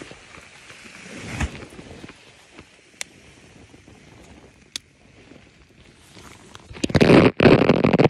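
Handling noise of a phone microphone: faint rustling and a few clicks, then from about seven seconds in loud scraping and rubbing as the phone is pressed against fabric.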